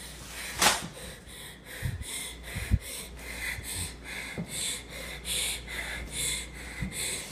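A frightened person's quick, heavy breathing close to a phone microphone, in repeated short puffs. A sharp click comes about half a second in, and a few dull thumps follow a second or two later.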